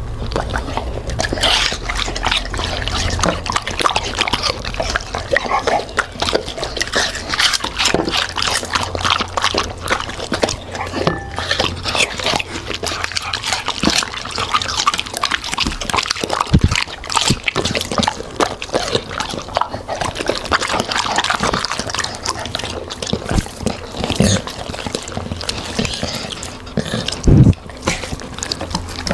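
A Labrador and a golden retriever eating watermelon close to the microphone: a continuous run of wet crunching, chewing and slurping of juice.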